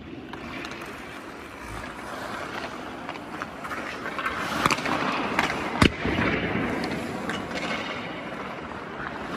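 Hockey skates scraping and carving on rink ice, with two sharp cracks of stick and puck, the louder about six seconds in and another a second before.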